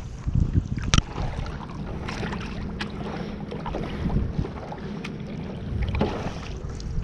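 Stand-up paddleboard out on the water: paddle strokes and water splashing and lapping, with wind buffeting the microphone. A sharp knock about a second in, and a few fainter clicks later.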